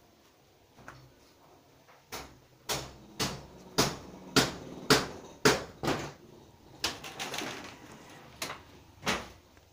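A series of sharp knocks or taps, about two a second, starting about two seconds in and stopping near the end.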